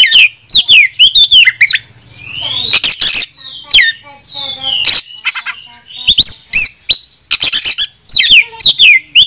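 Oriental magpie-robin (kacer) singing loudly in a fast, varied run of whistled phrases with quick rising and falling sweeps, sharp clicks and a few harsher rasping notes. This is a male in full song, calling out a rival.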